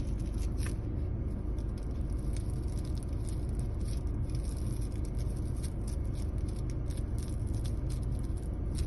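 Light crackling and rustling of a filled paper cone being handled between the fingers, over a steady low rumble of the car cabin.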